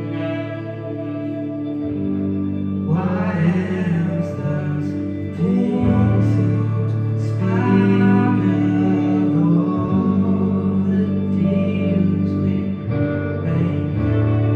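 Music: held low chords changing every few seconds, with a melody moving above them.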